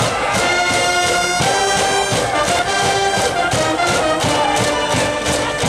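A cheering-section brass band in the stands playing a fight song, trumpets and other brass carrying a melody of held notes over a steady drum beat.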